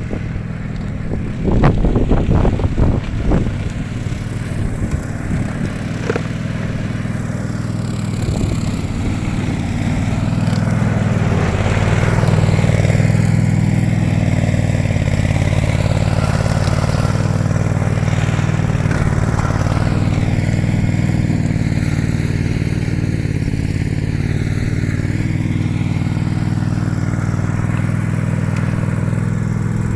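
Brush cutter's small petrol engine running steadily, with a cluster of clattering knocks about two to four seconds in.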